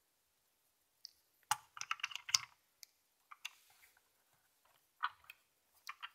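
Light hard-plastic clicks and knocks from a Paw Patrol Zuma hovercraft toy and its pup figure being handled, with a quick flurry of clicks about a second and a half in and a few more near the end.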